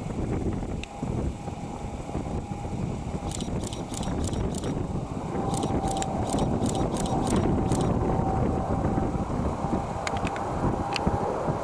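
Steady low engine noise with a faint constant whine and wind on the microphone, growing louder a few seconds in. A camera shutter fires in rapid bursts of clicks, twice.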